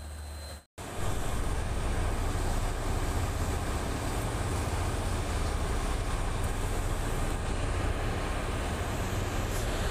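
Ship's engine running steadily: a low drone under a broad, even rush of noise. It drops out for a moment just under a second in, then resumes louder.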